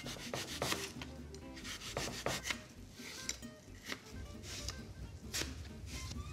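Knife slicing a green apple into thin rounds on a plastic cutting board: an irregular series of short, crisp cuts as the blade passes through the apple onto the board.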